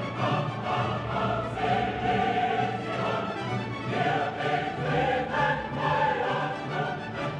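Dramatic background music with a choir singing sustained notes over an orchestra.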